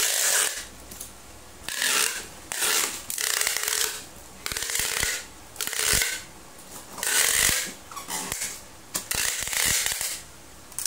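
Packing tape pulled off a handheld tape dispenser in a series of short ripping strips, about eight, laid onto a cardboard box, with a few knocks as the tape is cut and pressed down.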